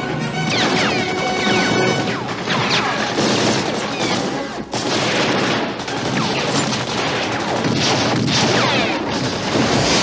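Film action soundtrack: a dense run of explosions and crashes over music, with several quick whistling sounds that fall in pitch.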